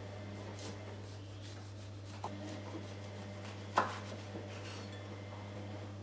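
Chef's knife slicing through an orange on a wooden cutting board: faint scattered cutting clicks, a sharper click about two seconds in, and a louder knock of the blade on the board just under four seconds in, over a low steady hum.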